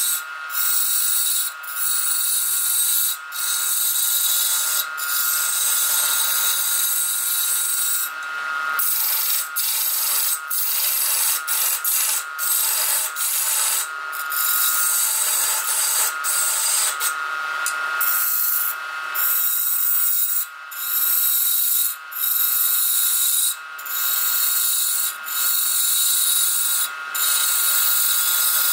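Hand chisel scraping a spinning wooden vase blank on a lathe: a steady high-pitched scraping with whining tones, broken by short gaps every second or two.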